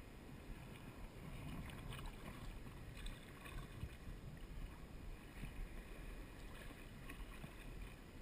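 Small ocean waves lapping and splashing against a surf kayak's hull, faint and irregular.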